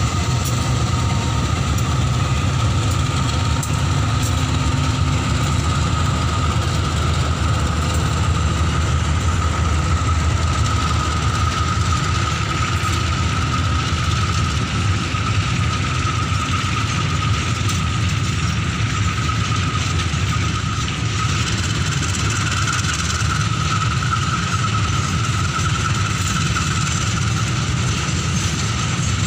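Two CC 201 diesel-electric locomotives pulling an empty tank-wagon train away: a steady low engine rumble with a high, even whine running through it, then the tank wagons rolling past on the rails.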